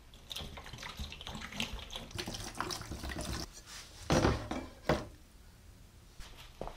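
Cleaning vinegar pouring from a gallon plastic jug into a plastic tote, followed by the rusty steel cleaver being lowered into the liquid, with two louder knocks and splashes about four and five seconds in.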